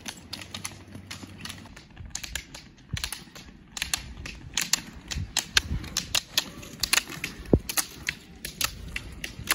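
Roller-ski pole tips clicking on asphalt as skate-technique roller skiers pole past, several sharp clicks a second in an irregular patter, with a low rumble underneath.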